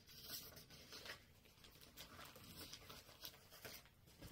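Faint rustling of paper quilt pattern packets in clear plastic sleeves being handled and shuffled, a series of brief scattered rustles.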